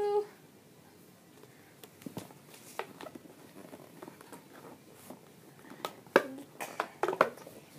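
Packaging being handled during a doll unboxing: scattered light rustles and clicks, with a few sharper ones near the end.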